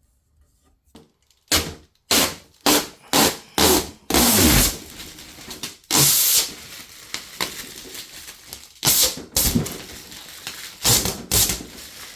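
Protective plastic film being peeled off a plexiglass (acrylic) sheet: a string of short, noisy tearing pulls starting about a second and a half in, a few of them longer.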